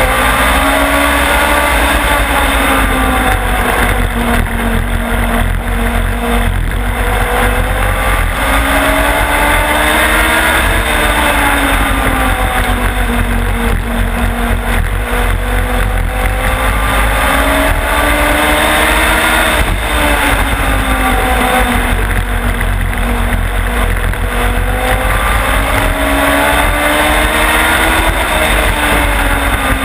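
Onboard sound of a small oval-track race car's engine at racing speed. Its pitch climbs as it accelerates and drops as it backs off for the corners, in a cycle that repeats about every ten seconds, over a steady rush of noise.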